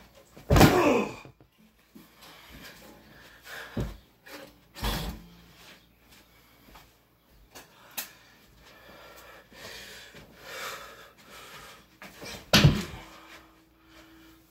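A handful of heavy thumps on a bed, the loudest about half a second in and another near the end, with rustling between: a person throwing himself and a stuffed toy around as he play-wrestles on the mattress.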